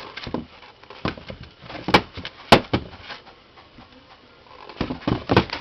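A few sharp knocks and clicks, the loudest about two and a half seconds in and a small cluster near the end, with quiet room tone between.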